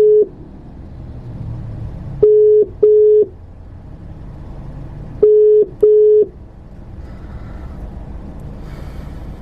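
Telephone ringback tone: a double ring of a low steady tone, two short beeps every three seconds. Two full double rings follow the tail of a previous ring, then the ringing stops after about six seconds.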